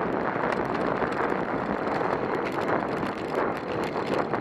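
Wind rushing over the microphone and bicycle tyres hissing on asphalt while riding at about 16 to 19 mph, a steady noise with faint ticks through it.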